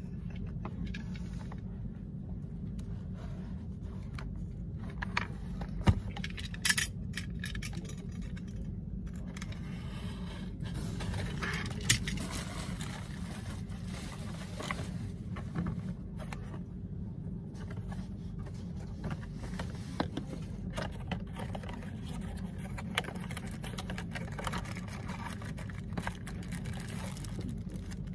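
Cardboard packaging and plastic wrapping being handled while a keyboard and mouse are unboxed: crinkling plastic, box scrapes and scattered light taps, over a steady low hum.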